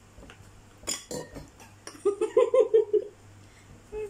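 Utensils clicking against a metal bowl during a meal, followed by the loudest sound: a high voice making a quick run of five or six short sung or babbled syllables, about a second long.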